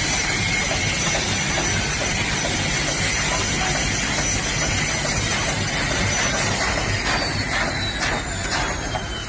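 Helicopter turbine engine running with a steady high whine over a loud rushing noise; about six and a half seconds in, the whine starts falling in pitch as the engine spools down after landing.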